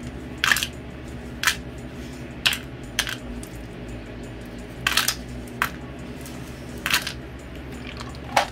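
Loose .22 LR brass cartridges dropped one at a time into the hopper of a Caldwell Rotary Mag Charger, each landing with a short, sharp clink. There are about eight clinks, roughly a second apart.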